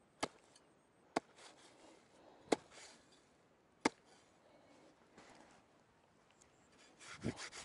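A knife chopping through the thick, matted roots of an uprooted ditch plant: four sharp cuts, roughly a second and a quarter apart, followed by a rustle near the end.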